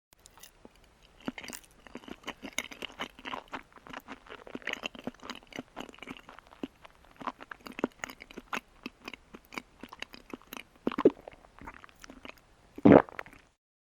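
Chewing: a rapid, irregular run of short clicks from the mouth, with a louder noise about eleven seconds in and a longer, loudest one near the end.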